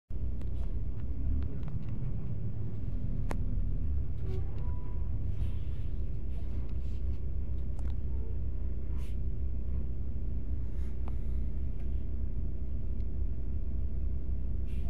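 Bus engine and road noise heard from inside the cabin: a steady low rumble as the bus moves slowly in traffic, with a few short clicks and rattles.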